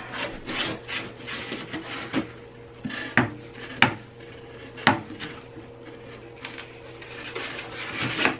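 Things being handled in and around a glass reptile terrarium: uneven rubbing and scraping, broken by several sharp knocks a second or more apart.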